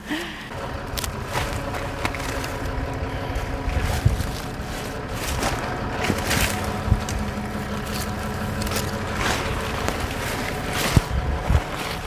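Mercedes Unimog truck's diesel engine running steadily, with scattered knocks and clicks over it.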